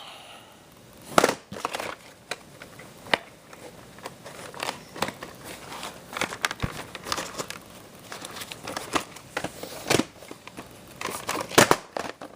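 Irregular crinkling and crackling with scattered sharp clicks, the sound of something being handled close to the microphone.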